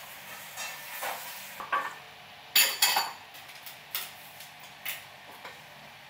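Dishes and kitchen utensils clinking and knocking: a string of separate sharp clinks, the loudest a pair of ringing clinks near the middle.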